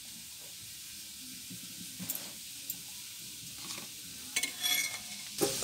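A steel spoon stirring cooked, wet fenugreek leaves in a steel pressure-cooker pot, with soft scrapes and small clicks over a faint steady hiss, and a few short metallic clinks of spoon on pot about four and a half seconds in.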